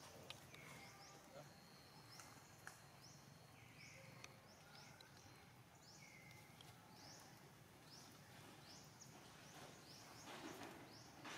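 Faint outdoor background with a small bird chirping over and over: short high chirps about once or twice a second, with a few lower calls among them. A short rustling burst comes near the end.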